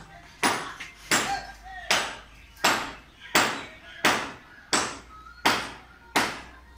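Rhythmic sharp knocking: about nine evenly spaced knocks, a little under a second apart, each dying away over about half a second.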